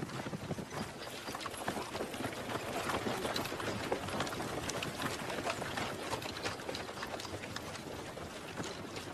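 Footsteps of a group of recruits running in army boots on dirt ground: many overlapping, uneven footfalls.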